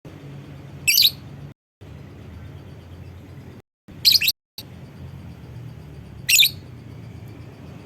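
Lovebird giving three short, shrill calls: about a second in, then twice more a few seconds apart, over a low steady background hum.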